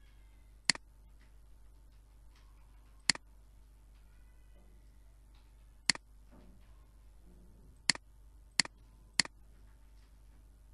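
Computer mouse button clicking six times: single sharp clicks spaced a few seconds apart, with the last three coming quickly, about half a second apart, near the end.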